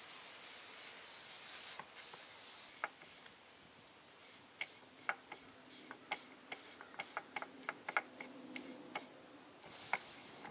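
A cloth rag rubbing gel stain into wooden boards: a faint wiping sound with many scattered light ticks, most of them around the middle.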